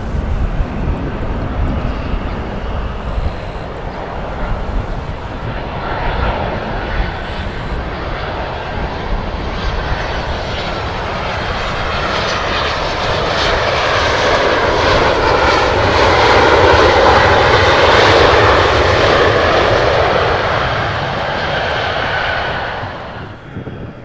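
Boeing 737-800's CFM56 jet engines landing: a broad rush of engine noise with a faint whine builds as the jet comes in and touches down, loudest a few seconds after touchdown, then cuts off suddenly near the end. A low rumble of wind on the microphone runs underneath.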